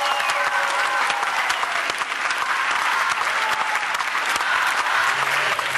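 Large audience applauding steadily, the dense clatter of many hands clapping, with a few voices calling out in the crowd.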